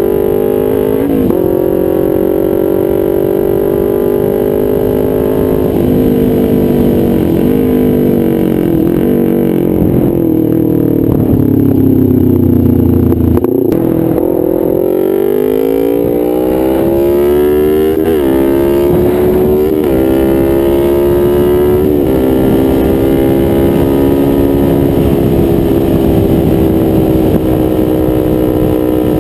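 Kawasaki Ninja 250R's parallel-twin engine through a nearly straight-piped DanMoto exhaust, under way on the road. It holds steady revs, drops off as the bike slows about ten seconds in, then climbs hard, with brief dips at each gear change, before settling back to a steady cruise.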